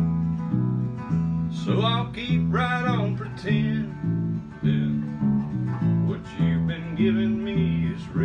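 Country-style instrumental break on acoustic guitar and bass: a steady beat of alternating low bass notes under strummed chords, with a higher melody line that bends in pitch a couple of times.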